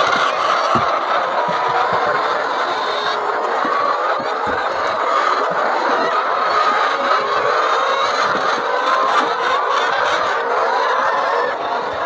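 A flock of laying hens in a hen house, clucking and squawking together in a continuous dense chatter.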